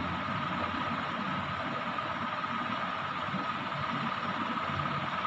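Steady hum and rushing air of a running electric fan, with a constant high whine over it.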